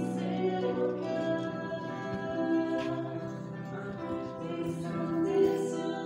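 Live concert harps playing under women's voices singing a slow hymn in long held notes.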